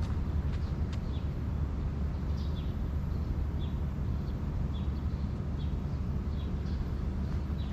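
A bird chirping repeatedly, short high notes about once a second, over a steady low outdoor rumble.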